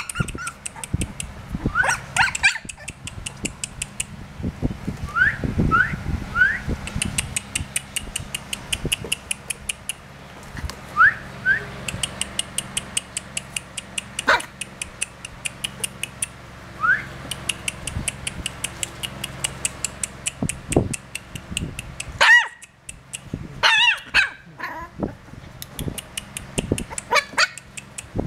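Chow chow puppies about 25 days old giving short rising yelps and whimpers now and then, with a cluster of whimpers near the end.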